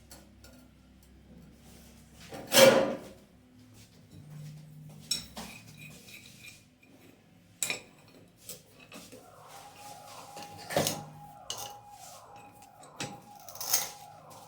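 Metal tools and tap fittings clinking and knocking during a kitchen sink mixer installation, with one louder clank about three seconds in. In the second half a rhythmic scraping repeats about twice a second.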